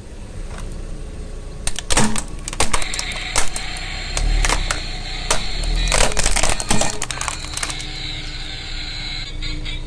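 Plastic toy car body cracking and snapping under a car tyre rolling over it on asphalt: a run of sharp cracks and pops over several seconds, with a low rumble from the tyre.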